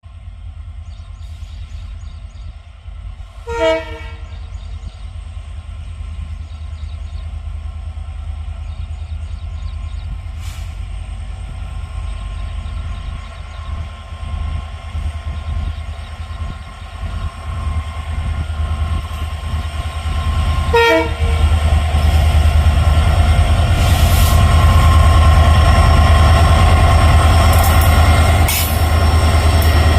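Twin WDG4 (EMD GT46MAC) diesel locomotives with their 16-cylinder two-stroke engines running under a steady low rumble. Each sounds a short horn blast, once about three and a half seconds in and again about twenty-one seconds in. From about twenty seconds on, the running noise grows louder, with rail and wheel noise.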